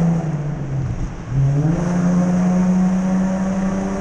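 Holden VS Commodore's engine and exhaust in a tunnel. The note falls off in the first second, then about a second and a half in it picks up again under throttle and holds a steady, higher pitch.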